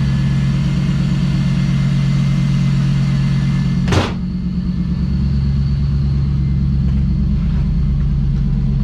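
Third-generation Chevrolet Camaro engine idling steadily, with one sharp knock about four seconds in.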